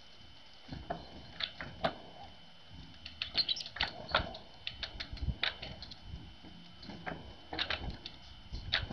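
Irregular light tapping and scratching, some taps coming in quick clusters, from a small bird working at a cardboard milk-carton feeder.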